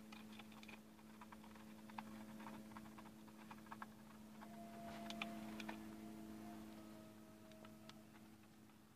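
Muscovy ducklings pecking at a red plastic feed dish: a faint, quick, irregular patter of bill clicks and taps, over a steady low hum.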